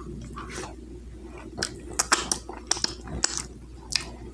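A person chewing food close to the microphone: irregular wet mouth clicks and smacks, a few sharper ones between about two and four seconds in.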